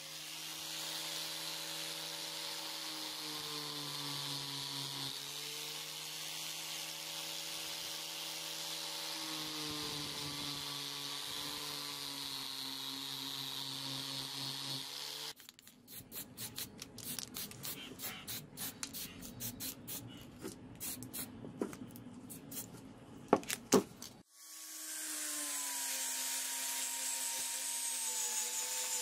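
Electric angle grinder fitted with a cloth buffing wheel, running steadily against brass, its whine dipping in pitch now and then as it is pressed in. About halfway the motor stops, and for some nine seconds there are irregular scratchy clicks and taps, with two sharp clicks near the end. Then the grinder runs again, working the steel blade.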